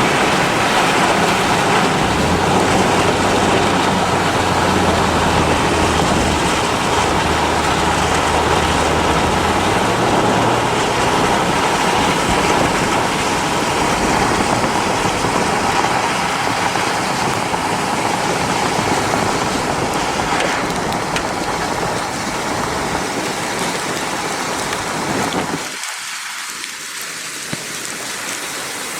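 Heavy storm rain and wind as a loud, steady hiss, with a low steady hum underneath for roughly the first ten seconds. Near the end the deep part of the sound drops away and the hiss thins out.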